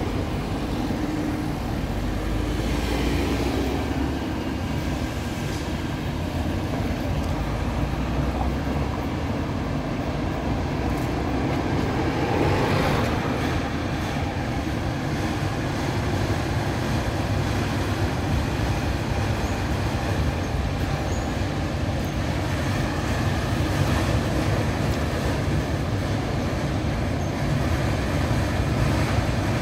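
Trenord passenger train running across the iron truss bridge's rail deck, a steady rumble of wheels on the track, with a brief louder swell about twelve seconds in.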